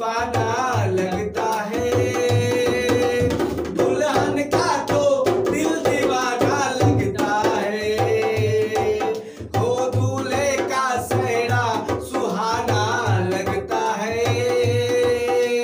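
A man singing a Hindi film wedding song with long held notes, accompanied by a dholak, a two-headed barrel hand drum, played in a steady beat.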